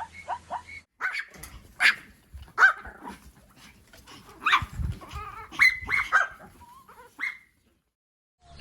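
An animal giving a run of short, sharp barks and yips, about a dozen calls with brief pauses between them, ending in a short silence.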